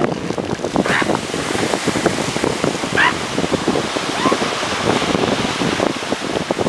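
Surf and wind noise at a northern elephant seal rookery, with a few short high animal calls about one and three seconds in.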